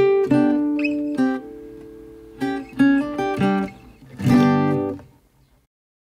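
Background music: acoustic guitar plucking and strumming, fading out about five seconds in.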